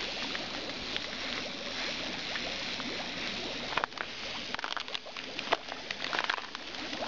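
Lake water splashing and sloshing around swimmers working at a pipe, with a few sharper splashes in the second half.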